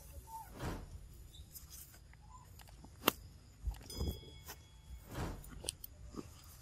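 Footsteps and rustling on a dirt and leaf-litter forest floor: irregular scuffs and a few sharp clicks, with a brief thin high tone about four seconds in.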